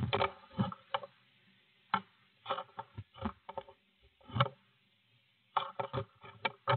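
Irregular sharp taps and knocks on the wooden nest box, some single and some in quick clusters of three or four, with short pauses between, picked up by the microphone inside the small box.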